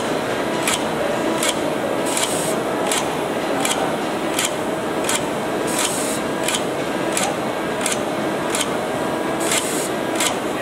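Automatic gluing and rubbering machine working over a cutting die, its head clicking evenly about every 0.7 s as it places rubber ejection blocks. A steady mechanical hum and faint whine run underneath, with a few short hisses of air.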